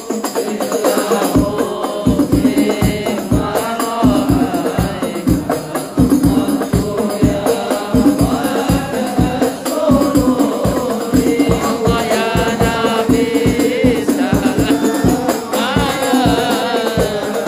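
Voices singing a sholawat devotional song over a steady beat of hand-struck rebana frame drums.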